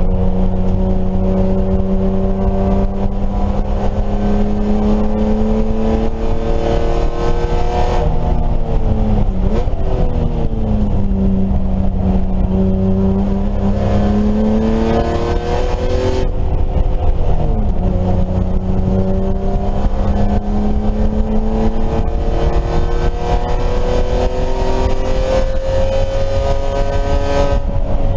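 BMW E30 race car engine running hard under load. The engine note climbs steadily, drops sharply twice, about a third and two-thirds of the way through, and climbs again each time.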